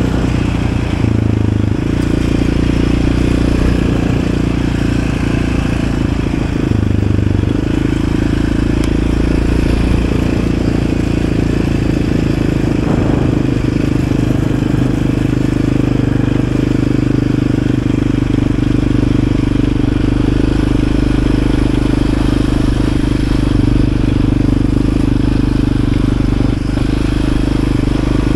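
Yamaha Raptor 700 ATV's single-cylinder engine running steadily while under way. Its pitch shifts in steps about a second in and again about seven seconds in.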